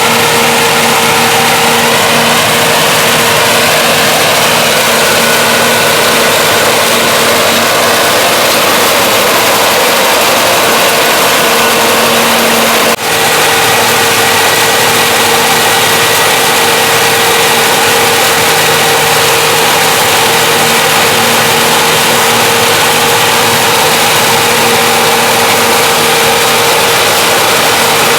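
John Deere 6620 combine running steadily while harvesting corn: loud, even engine and machinery noise with a steady whine over it. A brief dip in level comes about halfway through.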